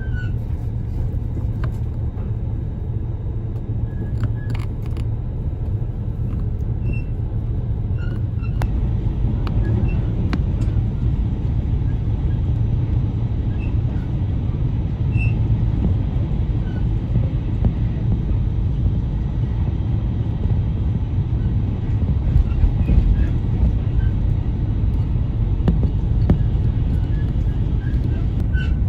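Cabin noise of a Relay Kamome limited express train running on the line: a steady low rumble of wheels on rails, with a few faint clicks and knocks.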